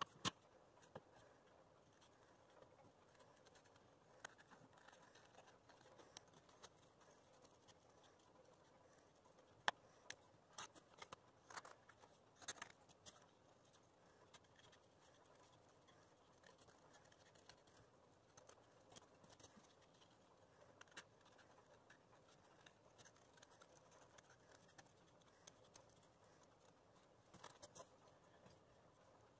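Faint snips of scissors cutting thin paper, with light paper handling: scattered soft clicks over near-silent room tone, busiest about a third of the way in and again near the end.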